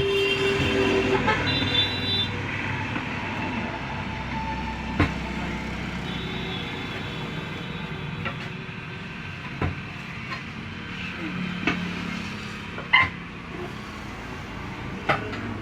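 Road traffic with vehicle horns sounding in long held toots, and several sharp knocks scattered through as a tractor tyre is worked onto its rim.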